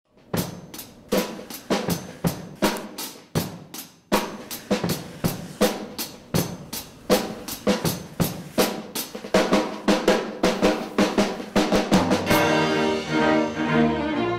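Drum kit playing, snare and bass drum strikes coming faster and closer together. Sustained pitched instrument tones join in near the end.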